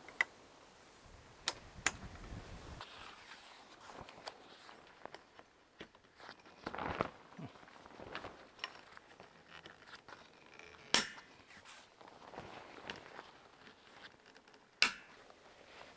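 Handling of a heavy canvas awning-tent wall as it is clipped onto an awning frame: rustling fabric with five sharp clicks spread through, a louder stretch of rustling about seven seconds in.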